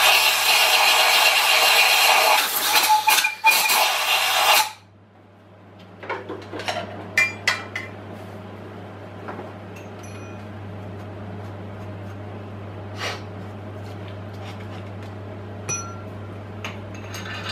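Compressed-air blow gun hissing loudly for about four and a half seconds, blasting chips out of a drilled and tapped head-stud hole in an engine block, with a few stutters before it cuts off. Afterwards come scattered light metallic clinks of tools and parts being handled, over a steady low hum.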